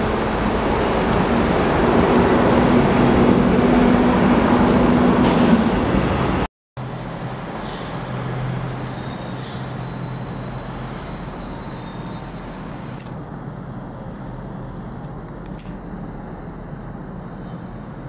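Steady running noise of a Hanshin 5500-series electric train with a low steady hum, loud for about six seconds. Then a sudden break and quieter steady noise with a lower hum.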